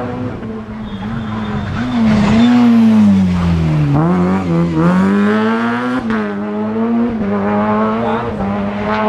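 Rally car engine worked hard, its pitch climbing and dropping repeatedly as it revs and shifts through the gears, loudest about two to three seconds in.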